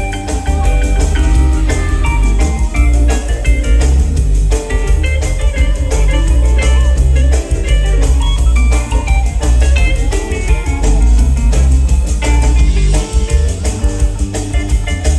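Live rock band playing an instrumental passage: heavy bass and drums under quick runs of short keyboard and guitar notes.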